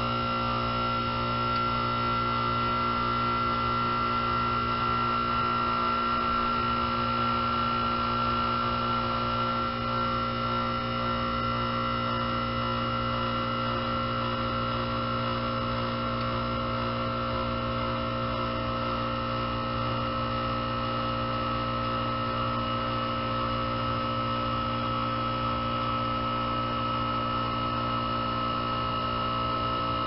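2008 two-ton Goodman heat pump's compressor running in defrost mode, its outdoor fan stopped: a steady hum with several steady tones.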